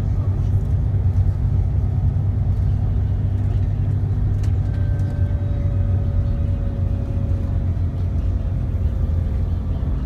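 Steady low engine and road rumble heard from inside a moving vehicle's cabin.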